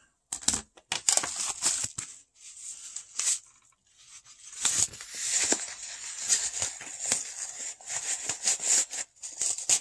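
Crinkling and rustling of paper and plastic mail packaging being handled, with a few sharp clicks and crackles in the first two seconds and a denser run of crinkling from about halfway on.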